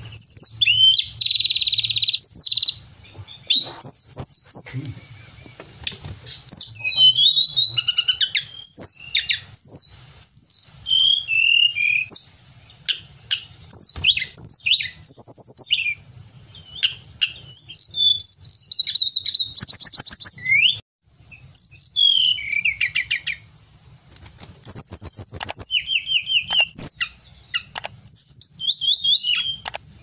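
Hill blue flycatcher (tledekan gunung) singing a long, varied song of short phrases, with fast trills and sliding high whistles broken by brief pauses.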